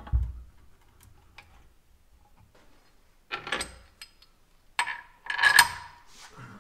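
Metal clatter of hand tools working on a car's rear suspension. A low thump comes at the start, then faint ticking, then three short clanking bursts about a second apart near the end, the last one the loudest.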